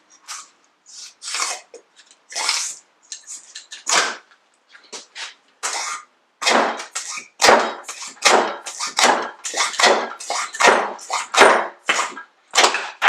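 Repeated metal knocking and scraping as the end cap of a Nissan 240SX 5-bolt CV axle joint is forced off the housing, the strokes sparse at first and then coming quickly, about two a second, with a few heavier knocks.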